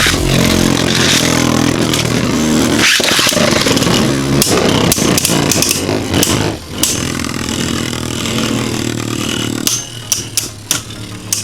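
Two Beyblade Burst spinning tops, Revive Phoenix and Vise Leopard, whirring steadily in a plastic stadium. Sharp clacks and scrapes sound as they collide, thickest midway and again near the end.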